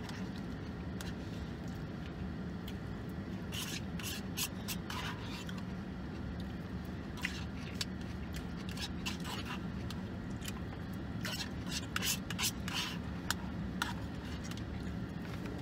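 Eating from a plastic takeout rice bowl: a plastic fork scraping and clicking against the bowl in scattered short bursts, over the steady low hum of a car's cabin.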